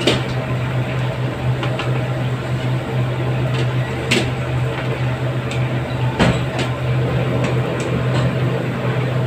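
Fried chicken pieces being lifted out of a wok of hot oil with a wire spider strainer, which clinks against the wok and a metal colander several times, over a steady low hum of kitchen equipment and the sizzle of the oil.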